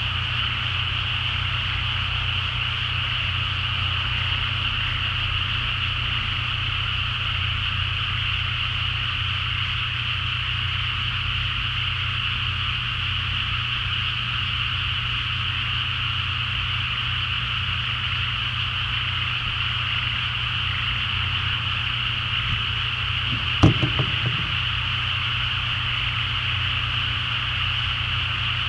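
A dense chorus of many frogs calling together, a steady continuous din with no breaks, over a low steady hum. One brief knock about 24 seconds in.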